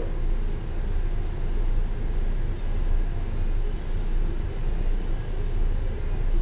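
Steady low rumble of a double-decker bus engine idling, heard from inside on the upper deck while the bus stands at a red light.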